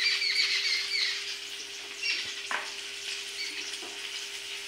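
Mustard oil glugging out of a plastic bottle onto chicken in a steel bowl, stopping about a second in, over a steady frying sizzle from a pan nearby. A couple of light clicks follow.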